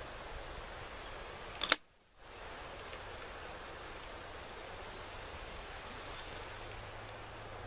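Gunmark Sabel 12-bore side-by-side shotgun's break action snapping shut on loaded shells: one sharp click a little under two seconds in. A few high, falling bird chirps follow near the middle.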